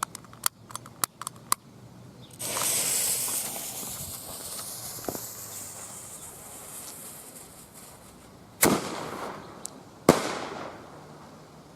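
A few sharp clicks, then a 40-inch giant parachute firework's fuse hissing and sputtering loudly for several seconds as it fades. Two loud bangs follow about a second and a half apart: the shell's launch and the burst that throws out the parachute.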